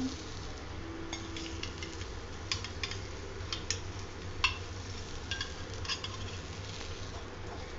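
Veg burger patty sizzling softly in butter on a non-stick grill pan, with a dozen or so light clicks and scrapes of a spatula against the pan as the patty is turned, over a steady low hum.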